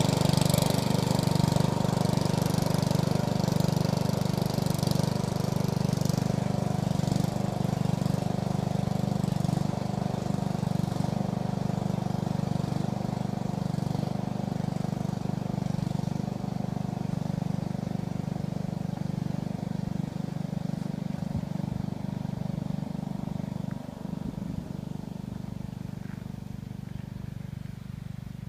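Lawn tractor engine running steadily as it tows a loaded trailer away, the sound slowly fading as it drives off.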